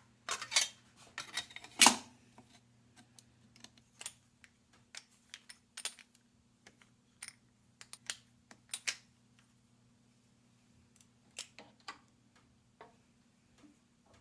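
Irregular sharp clicks and taps of small hard parts being handled, loudest and busiest in the first two seconds, over a faint steady hum.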